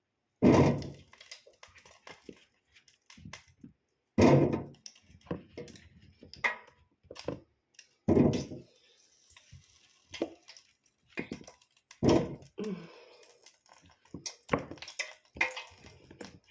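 Kitchen work with potatoes: four heavy thunks about four seconds apart, with lighter knocks and clicks in between.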